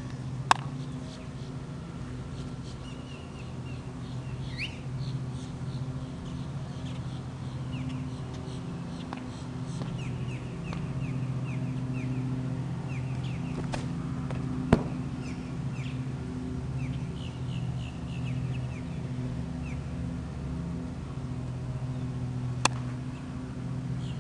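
Birds chirping in short repeated calls over a steady low hum, with three sharp claps: about half a second in, near the middle, and near the end.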